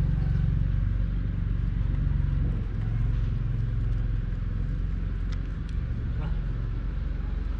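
An engine running at a steady low hum, with a few faint short high sounds about five seconds in.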